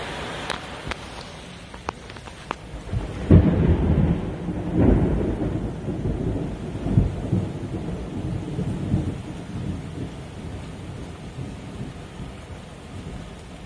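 Heavy rain falling steadily, with a low rolling rumble of thunder that swells about three seconds in and dies away slowly over several seconds. A few sharp clicks sound in the first couple of seconds.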